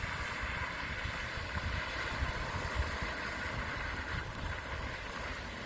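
Car tyres hissing and swishing through standing floodwater on a street, a steady wash that eases off about four seconds in, over a low rumble.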